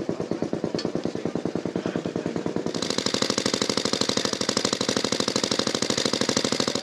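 Veteran motorcycle engine running at a slow idle, its firing beats evenly spaced at about ten a second. About three seconds in, a hiss comes in over the beats.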